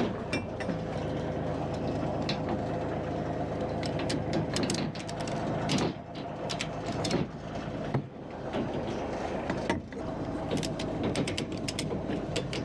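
Ratchet tie-down strap being cranked tight, its pawl clicking in irregular runs, with an engine running steadily underneath.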